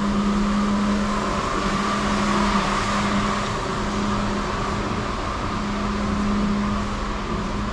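A steady mechanical hum with a constant low drone and an even hiss above it, unchanging throughout.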